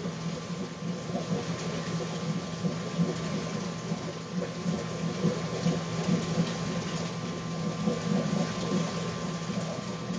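Reef aquarium's water circulation running: a steady low hum from its pumps under a continuous churning, splashing rush of moving water.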